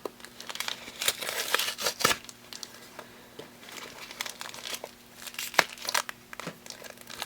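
Foil Pokémon booster pack wrapper crinkling in the hands and being torn open, in short irregular crackles.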